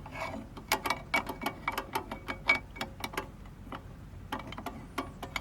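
Irregular small clicks and ratcheting ticks from a clock-driven commercial light timer, several a second, as its dial is turned by hand and its on/off tripper is positioned and clamped.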